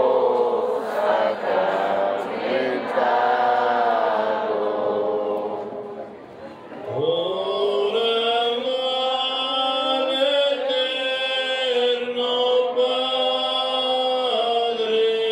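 Unaccompanied singing of a Holy Week hymn: several voices chanting together at first, then, about seven seconds in, a single voice slides up and holds long drawn-out notes.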